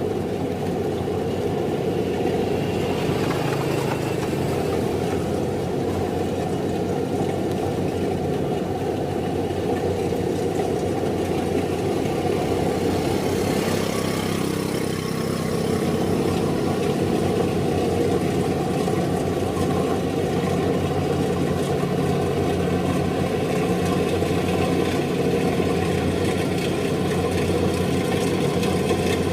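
Kubota DC-70 rice combine harvester running steadily. The engine's note holds constant and grows a little louder about halfway through.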